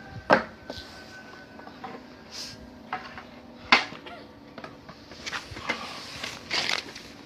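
Scattered knocks and clinks of hard objects being handled, the loudest about a third of a second in and near the middle, over a faint steady hum.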